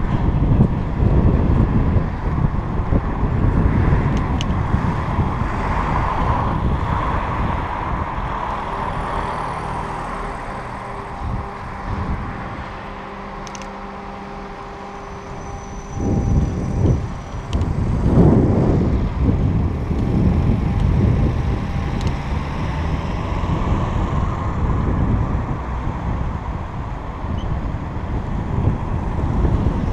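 Wind buffeting the microphone of a camera on a moving bicycle, a steady low rumble mixed with the noise of cars on the road alongside. The rumble eases for several seconds in the middle, while the bike is stopped at a crossing, and comes back loud about sixteen seconds in.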